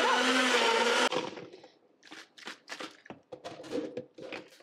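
NutriBullet blender motor running steadily, blending a frozen-vegetable smoothie, then stopping abruptly about a second in. A series of light, irregular clicks and knocks follows as the blender cup is handled on the base.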